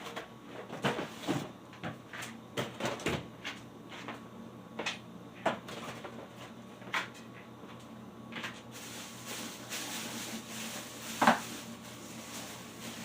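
Irregular household knocks and clatter, like cupboard doors and objects being handled and set down. A steady hiss joins about nine seconds in, and the loudest knock comes near the end.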